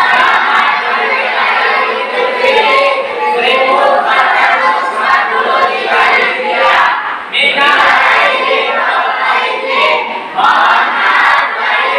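A group of children and teenagers chanting together in unison, many voices at once, with short pauses between phrases in the second half.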